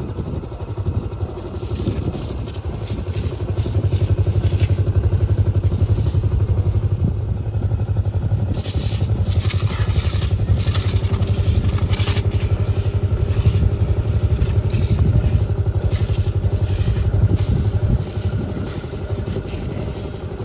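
A vehicle's engine running steadily, getting louder about four seconds in and easing off near the end, with scattered rattling in the middle.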